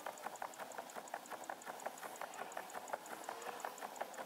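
Faint background music with a steady ticking beat.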